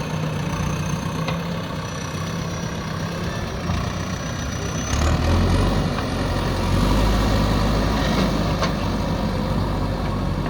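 JCB backhoe loader's diesel engine running. About five seconds in it takes on load, turning deeper and louder, with a thin high whine over it.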